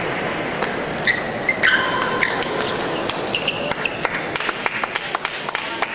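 Table tennis balls clicking off bats and tables in a large hall, many quick irregular ticks that come thick from about halfway through, over a steady hall background. A few brief squeaks sound between one and two and a half seconds in.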